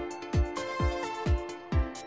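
Background instrumental music with a steady beat, about two beats a second, under a simple melody of held notes stepping up and down in pitch.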